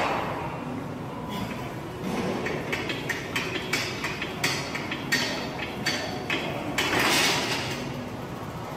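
Heavily loaded barbell clanking in a series of sharp metal knocks, about three a second, as the bar is jerked through short, fast shrugs. About seven seconds in there is a louder, noisy burst.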